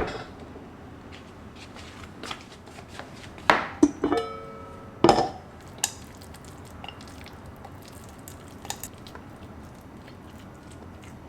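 A handful of sharp knocks and clinks of kitchenware, clustered about three and a half to five seconds in, one clink ringing briefly like a dish or pot. Otherwise a steady low background.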